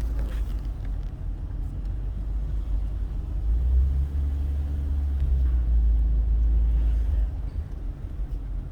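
A car driving with a low, steady rumble of engine and road noise, which swells louder for a few seconds in the middle.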